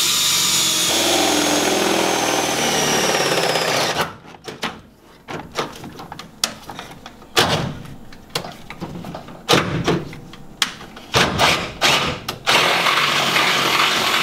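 Power drill boring through the car's steel frame rail with a twist bit, the motor's whine sliding down in pitch under load for about four seconds. Then comes a run of scattered sharp knocks and clicks, and the drill runs again near the end.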